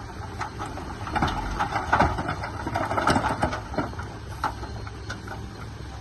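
Remote-control construction machine working: a steady low motor hum with a burst of irregular clicking and rattling between about one and four seconds in.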